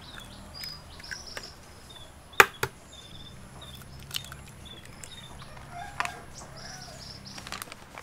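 Raw eggs being cracked and broken open by hand over a steel bowl: a few sharp cracks, the loudest about two and a half seconds in. Small birds chirp in short repeated calls in the background.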